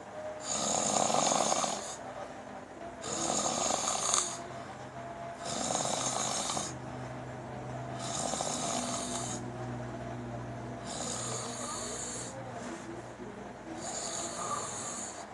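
A person snoring in a steady rhythm, about one snore every two and a half seconds.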